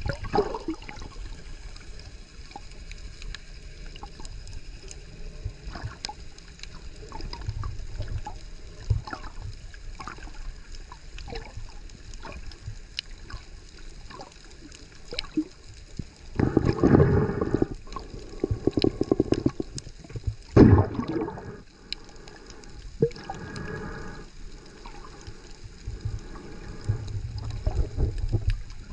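Underwater sound picked up by a camera held beneath the surface: a steady muffled water noise with scattered faint clicks, broken in the second half by several louder rushing, bubbling bursts of water moving past the camera.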